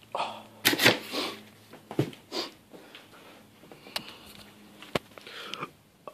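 Clear plastic bag around a subwoofer crinkling and rustling in irregular bursts as the sub is grabbed, lifted and set down, with a couple of sharp clicks.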